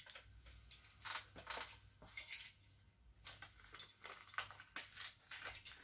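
Small parts and packaging being handled on a table: a scatter of faint clicks, light clinks and rustles at uneven intervals.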